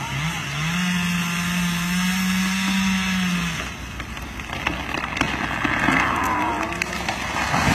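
Chainsaw running at high revs in the felling cut of a tall pine, then shutting off about three and a half seconds in. The trunk then starts to go over, with sharp cracks and creaking from the hinge wood as the tree leans.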